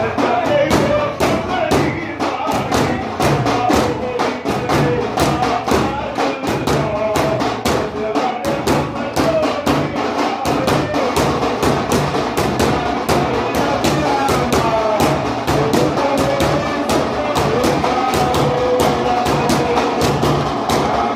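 Daf frame drums beaten in a fast, steady rhythm, with voices singing devotional chant over them.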